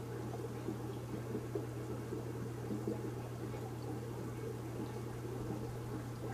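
Aquarium filter running: a steady low hum with water trickling and bubbling.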